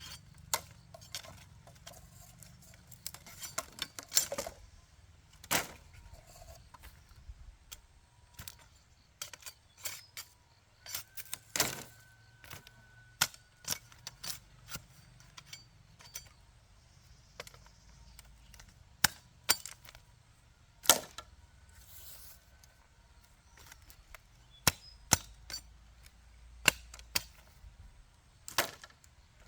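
Bamboo being chopped and worked with hand tools: irregular sharp knocks and cracks, single strikes or short runs with pauses between, a few of them much louder than the rest.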